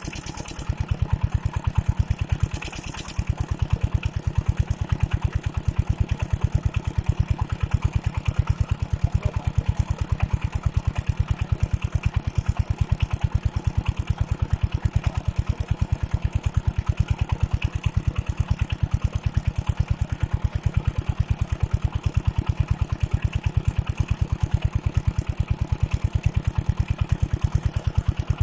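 Old stationary water-pump engine, revived after disuse, running steadily at a slow, even beat of firing strokes. There is a brief dip in its rhythm about two seconds in.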